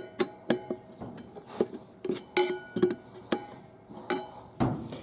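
Steel snap ring and screwdriver clicking and clinking against a 700R4 transmission's clutch drum as the snap ring is pried into its groove: a quick irregular run of sharp metallic clicks, some ringing briefly.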